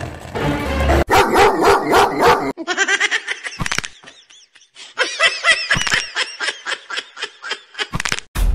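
A dog barking in quick runs of rapid barks, over music.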